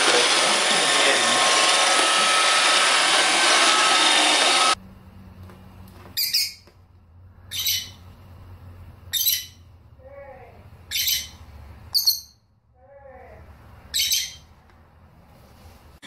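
Robot vacuum cleaner running with a loud, steady whir that stops abruptly about a third of the way in. Then come six short, sharp lovebird chirps, one every second or two.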